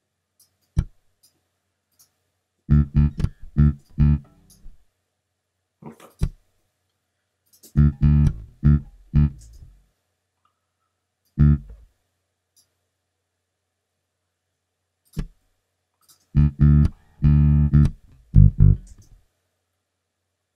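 Sampled electric bass from the Ample Bass virtual instrument playing short phrases of plucked notes, starting and stopping several times with silent gaps between them.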